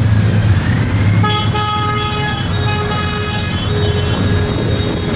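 A group of motorcycles rumbling past at low speed, with horns honking in repeated short and longer blasts from about a second in.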